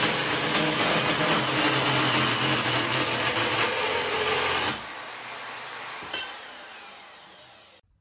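Handheld power tool running loud and steady, switched off about five seconds in and winding down with a falling whine; the sound cuts off just before the end.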